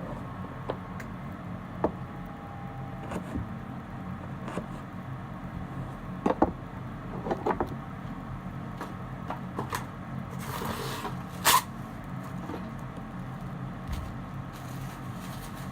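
Kitchen knife cutting vegetables on a cutting board in scattered single knocks and taps rather than steady chopping, over a steady low hum. A brief rustle and a sharp, louder knock come about two-thirds of the way through.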